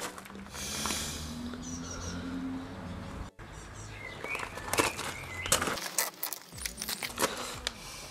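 Birds chirping in the background, then several sharp clicks and knocks as a cork is handled against a plastic kayak hull and pushed into its drain-plug hole.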